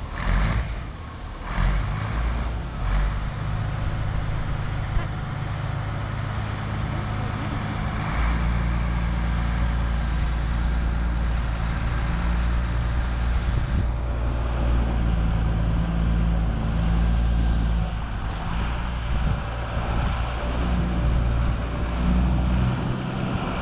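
Diesel engine of a front-end loader running steadily under load as it pushes a steam locomotive around on a turntable; its low drone grows stronger about eight seconds in.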